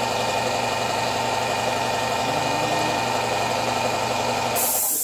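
Shop air compressor running with a steady motor hum, switched on again by a small air leak. Near the end it cuts off as a burst of air hisses out.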